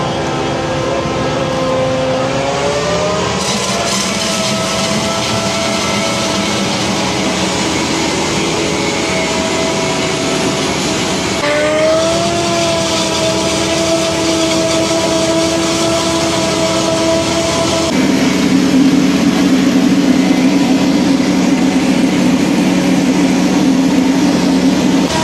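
John Deere self-propelled forage harvester running while chopping corn for silage: a loud, steady machine drone with a whining tone over it. The whine rises a couple of seconds in and again about halfway through, and the sound turns to a heavier, lower hum about three-quarters of the way through.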